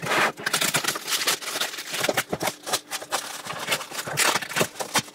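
Plastic storage tote being handled and its taped lid worked at: a quick, irregular run of scrapes, clicks and rustles.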